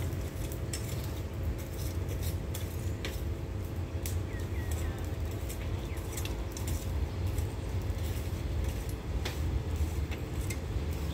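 Steady low rumble of a distant diesel locomotive approaching with a freight train, overlaid with scattered light clicks and clinks.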